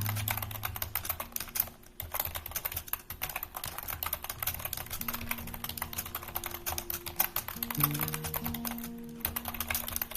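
Fast keyboard typing, a dense run of key clicks that thins out briefly about two seconds in and again near nine seconds, over soft instrumental worship music with held chords.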